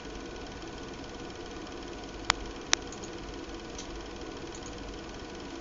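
Steady mechanical hum from a small running machine, with two sharp clicks about half a second apart a little past the middle.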